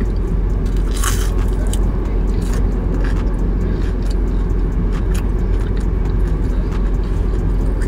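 Close-up chewing of a chicken nugget, with a few short wet clicks and smacks of the mouth, over a steady low rumble in the car cabin.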